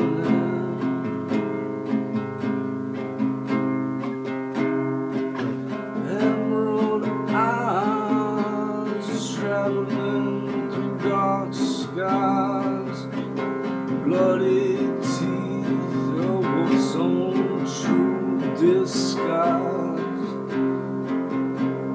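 Acoustic guitar played through a song, with a man singing over it from about six seconds in.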